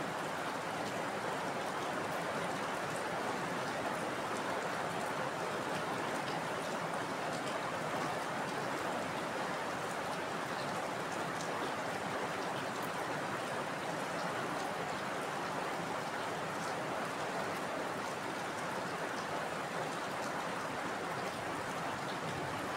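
Heavy rain falling steadily: an even hiss of countless drops with faint scattered ticks of single drops, without change throughout.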